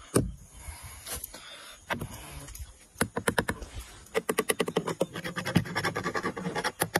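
A metal hand tool scraping and clicking along the bony, serrated side plates of a large catfish. There are a few scattered knocks at first, then about three seconds in a fast run of scratchy clicks, several a second.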